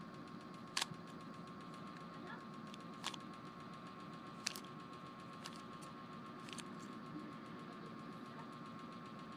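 Plastic Rubik's cube being turned, giving a handful of sharp clicks a second or more apart over a faint steady hum with a thin whine.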